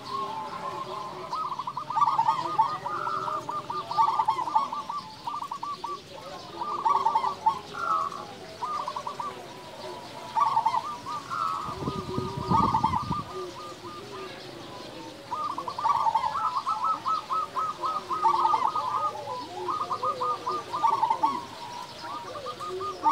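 Zebra dove cooing in quick runs of short, rolling notes, the runs pausing briefly and starting again.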